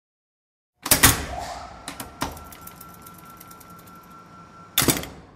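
Sound effects for an animated intro title: two loud sharp hits about a second in, then a fast, even run of ticks over a faint steady tone, and another loud hit near the end.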